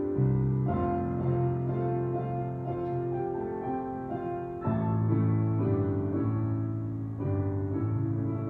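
Solo piano music of the kind played to accompany a ballet barre exercise: sustained chords under a melody, with a louder new phrase coming in a little past halfway.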